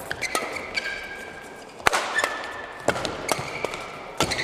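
Badminton doubles rally: rackets strike the shuttlecock with sharp cracks, roughly once a second, between short squeaks of shoes on the court mat.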